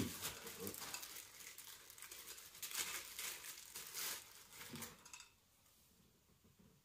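Thin clear plastic bag crinkling and rustling in uneven spurts as it is handled and opened. It cuts off abruptly about five seconds in.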